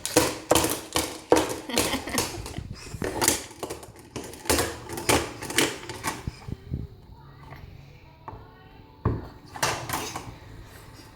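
A baby banging his toys, an irregular run of sharp clacks and knocks that stops about six and a half seconds in and starts again about nine seconds in.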